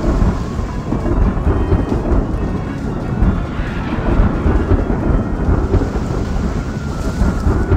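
Cartoon thunderstorm sound effect: a continuous low rumble of thunder with rain.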